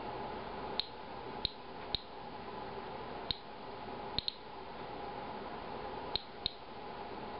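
Inspector Alert Geiger counter clicking at irregular, random intervals, about eight short high-pitched clicks with two close pairs. Each click is one detected radiation count at a low, near-background rate. A steady hum runs underneath.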